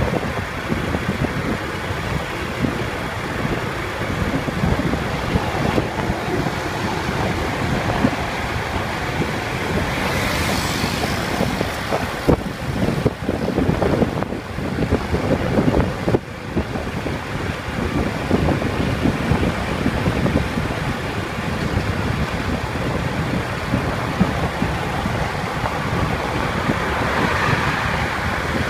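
Steady road and traffic noise heard while moving at speed along a highway, with wind buffeting the microphone. Brief louder rushes come about ten seconds in and again near the end.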